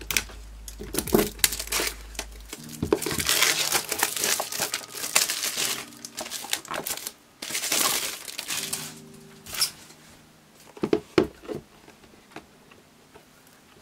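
Plastic shrink-wrap crinkling and tearing as it is slit with scissors and peeled off a cardboard marker box, with scattered light clicks and taps from handling the box.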